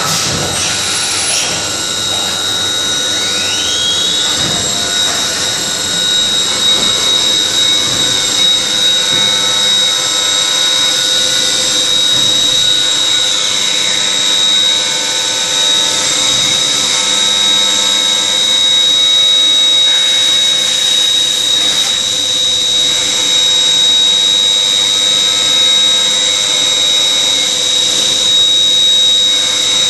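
Leadwell V-50L vertical machining centre milling metal parts under flood coolant: a steady high-pitched spindle and cutter whine over a constant hiss of cutting and coolant. A rising whine near the start, as the spindle speeds up.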